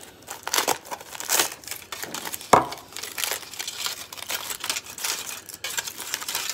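Aluminium foil crinkling and rustling as it is peeled off a small tin of beard butter, with one sharp knock about two and a half seconds in.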